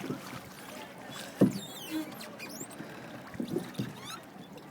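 Rowing boat being rowed, oars working in the water, with one sharp knock about a second and a half in and a couple of softer thuds near the end.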